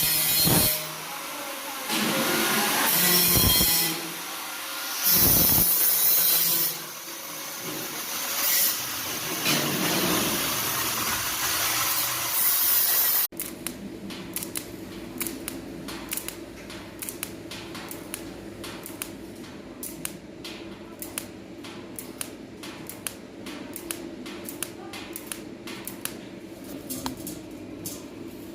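A power tool running in loud bursts, starting and stopping several times. About thirteen seconds in it cuts off abruptly, giving way to a quieter steady hum with rapid, irregular clicking.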